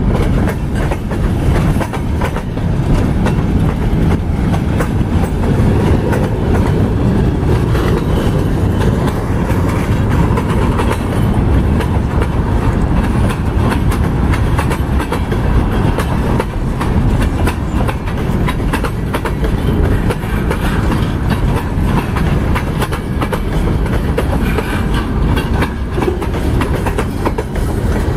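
Boxcars of a Pan Am Railways freight train rolling past: a steady rumble of steel wheels on rail, with repeated clicking as the wheels cross rail joints.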